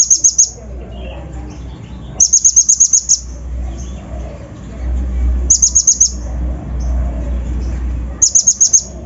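Little spiderhunter (kolibri ninja) calling in quick trains of sharp, high chipping notes, about eight to ten notes in under a second, repeated every two to three seconds. A steady low rumble runs underneath.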